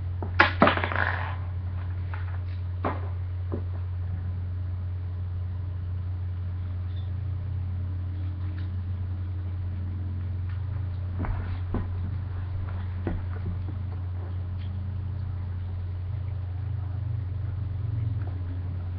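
Steady low hum, with a short cluster of clicks and knocks about half a second in and a few single clicks later: hands handling a plastic Beyblade toy.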